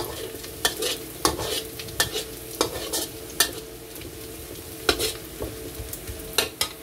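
Metal spatula scraping and knocking against a wok at irregular moments, stirring sliced shallots and garlic as they sauté in oil, with a soft sizzle underneath.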